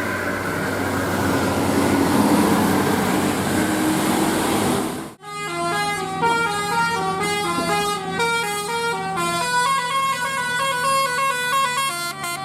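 About five seconds of loud bus and road noise, then an abrupt cut to a bus's telolet horn playing a quick tune of stepping multi-tone notes.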